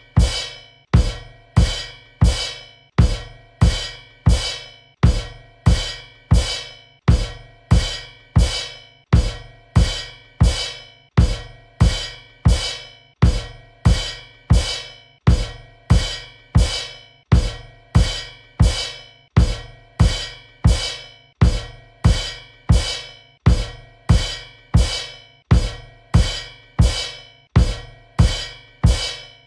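Cymbal kick, a bass drum and a cymbal struck together, repeated at an even pace of about three hits every two seconds. Each hit is a deep drum beat with a bright cymbal ring that dies away quickly.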